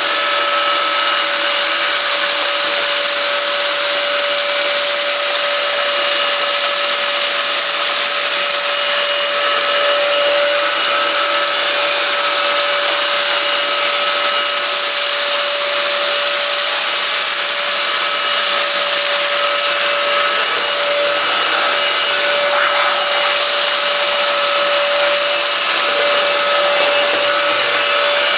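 Silvercrest SHAZ 22.2 F7 cordless cyclone vacuum cleaner running in boost mode: a steady high motor whine over a loud rush of air.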